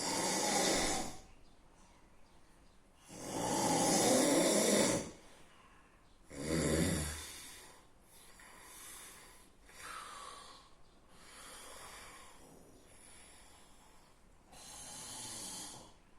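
A sleeping person snoring loudly. Three loud snores in the first seven seconds, then four softer ones.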